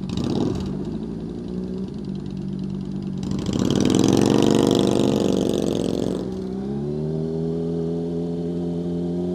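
Motorcycle engine idling, then revving up and easing back down about three seconds in, then pulling steadily at low revs with the pitch slowly rising.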